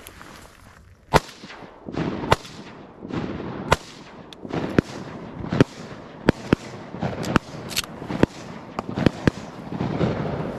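Shotguns firing at ducks in a ragged volley from several guns, about a dozen sharp shots spread over ten seconds, the loudest about a second in.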